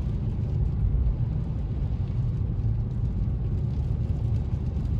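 Car driving on a wet, snowy road, heard from inside the cabin: a steady low rumble of tyres and engine.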